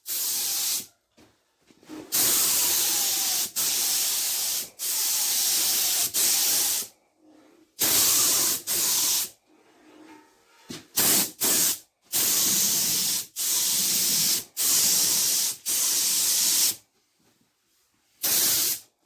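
Primer being sprayed onto a plastic car bumper: repeated hissing spray passes, most lasting one to two seconds, starting and stopping abruptly with short pauses between, and a few very brief squirts near the middle.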